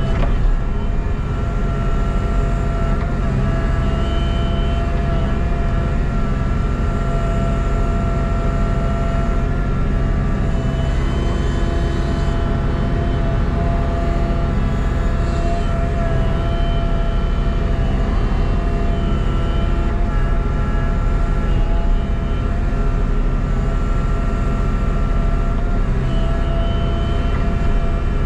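Heavy diesel engine running steadily under load, a low rumble with a steady high whine over it.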